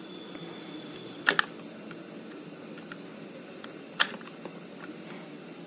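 Two sharp clicks, the first one doubled, about a second apart from three, from small tools being handled at an RC stunt car's circuit board while its wires are desoldered, over a steady low hum.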